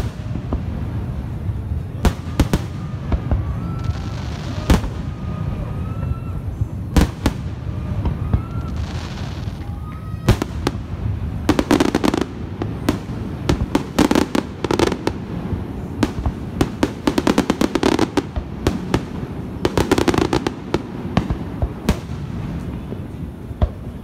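Aerial fireworks shells bursting overhead: sharp bangs spaced a second or two apart at first, then coming in quick clusters through the middle, over a steady low background rumble.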